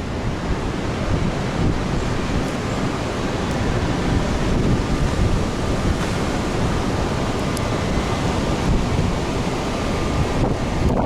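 Hurricane Irma's wind blowing steadily and buffeting the microphone: a dense, even rushing with heavy low rumble.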